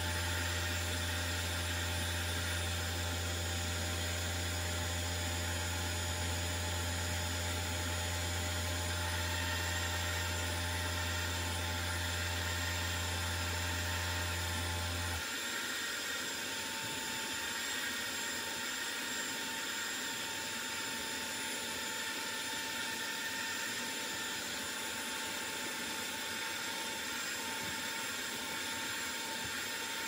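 Carpet and upholstery extractor running with a steady high whine and hiss; a strong low hum underneath cuts off abruptly about halfway through, while the whine carries on.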